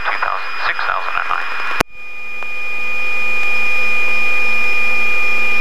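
After a sharp click about two seconds in, a helicopter's steady high-pitched turbine and gearbox whine swells for a second or two and then holds level.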